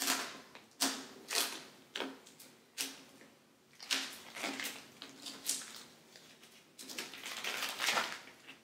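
Paper-and-plastic crackling of vinyl decal backing and tape being peeled and crumpled by hand, in a string of short bursts, with a longer crackling stretch near the end.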